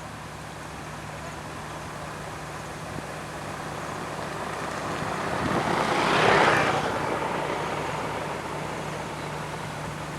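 A road roller's diesel engine running steadily, with a vehicle passing close by: the noise swells to a peak a little past halfway and then fades.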